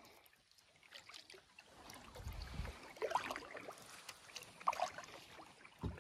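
Water sloshing, splashing and gurgling around a camera dipped at the surface beside a kayak. There is a low rumble about two seconds in, and sharper splashes about three seconds in, near five seconds and again at the end.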